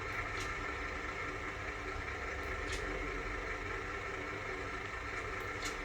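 A vehicle engine running steadily at an even speed, with three faint clicks spread through it.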